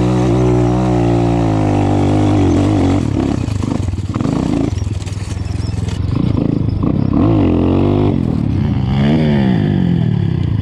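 Enduro dirt bike engine running under load, its revs rising and falling with the throttle, with two sharp climbs in pitch in the second half.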